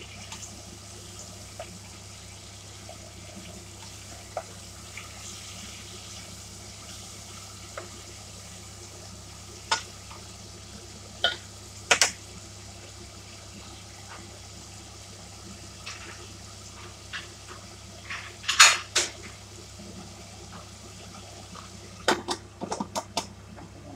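Kitchen clatter of utensils and cookware: scattered sharp clinks and knocks, a few around ten to twelve seconds in, the loudest clatter about three-quarters through, and a quick run of clinks near the end, over a steady low hum.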